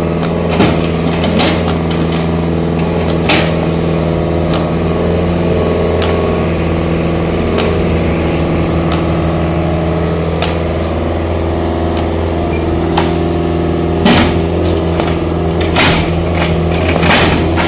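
Small excavator's diesel engine running steadily while it demolishes concrete hollow-block walls, with scattered sharp knocks and cracks of breaking concrete; the loudest knock comes about 14 seconds in.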